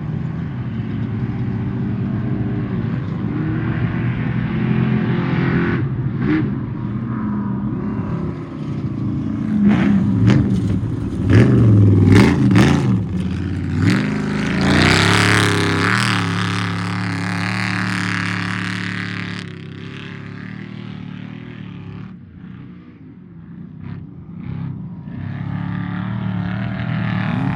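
Off-road race truck engines running and revving, the pitch rising and falling. Loudest about halfway through, then quieter for a few seconds before picking up again near the end.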